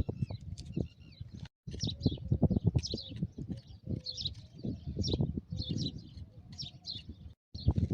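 Small birds chirping repeatedly, over irregular low knocks and handling sounds. The sound drops out briefly twice.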